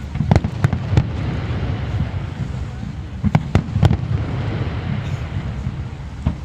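Aerial fireworks going off: three sharp bangs in the first second and another quick run of three about three and a half seconds in, over a steady low rumble.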